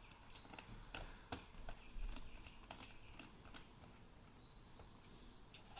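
Faint, scattered small clicks of a screwdriver and small screws being fitted back into a laptop's hard-drive bay.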